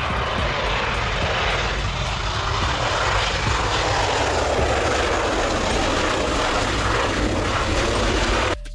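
Twin Rolls-Royce BR710 turbofan engines of a Gulfstream G550 jet running with a steady, loud rushing noise as it rolls out along a wet runway after landing. The sound cuts off abruptly near the end.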